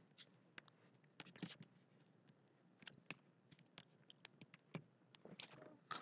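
Campfire crackling: faint, irregular pops and snaps scattered through near silence.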